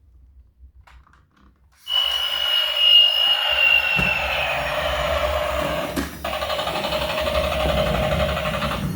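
A battery-powered toy vehicle's small electric motor switches on about two seconds in and runs steadily with a high whine that slowly drops in pitch. A couple of light clicks come through while it runs.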